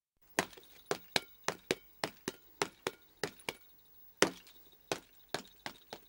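Foley sound-effect knocks: a run of about fifteen sharp knocks at roughly two a second, starting after a short silence, with the loudest one about four seconds in and the rest fading toward the end.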